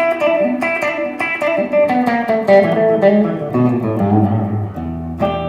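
Telecaster-style Memphis Outlander electric guitar with both single-coil pickups selected, playing a quick run of single picked notes and ending on a held low note near the end. The tone has the Telecaster-like twang.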